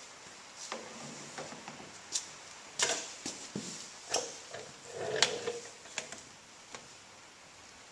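Handling noise as a rubber fuel hose and plastic diesel can are moved about and a line fitting on a Beckett oil burner's fuel pump is worked by hand: irregular clicks and knocks, the loudest about three and five seconds in.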